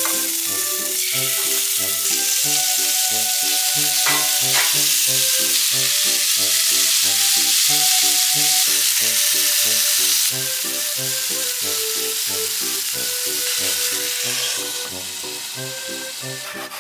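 Cubes of misuji beef searing in hot garlic oil in a frying pan, a loud steady sizzle that starts as the meat goes in. The sizzle steps down about ten seconds in and drops again near the end, as the pan is lidded and the heat turned down.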